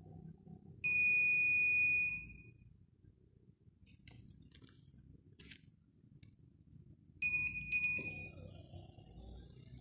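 Electronic buzzer of an RFID smart-card door lock beeping: one steady high beep lasting about a second and a half, then about six seconds later two short beeps close together as the card is accepted and access is granted.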